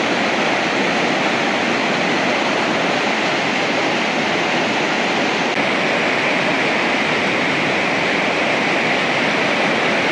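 Muddy river in flood after heavy rain, its fast water rushing with a loud, steady roar-like noise.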